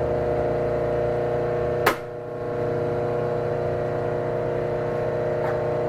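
3-phase converter humming steadily just after being switched on, a stack of steady tones, with one sharp click about two seconds in.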